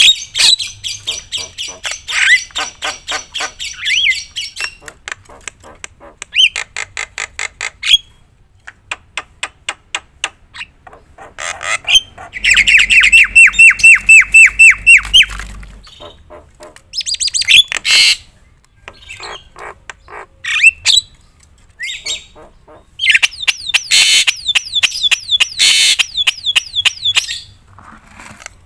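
Javan myna singing loudly and continuously, a varied mix of rapid chattering notes, harsh squawks and short whistles, filled with mimicked phrases. About halfway through comes a loud, fast run of repeated notes.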